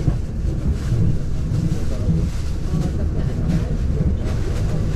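A Talgo passenger train running along the line, heard from inside the carriage: a steady low rumble of wheels on rail, with a few faint clicks.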